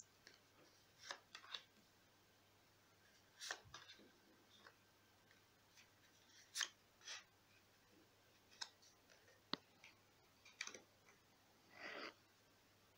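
Tarot cards being dealt one by one onto a wooden table: faint, scattered taps and slides of card on wood, with a longer swish near the end.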